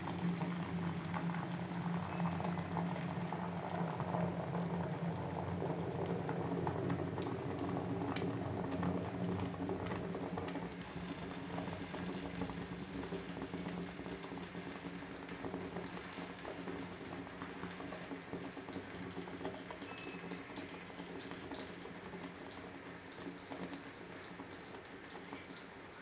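Red-hot metal ball sizzling and bubbling against a wet substance, with many small crackles and pops. The sizzle gradually dies down over the second half.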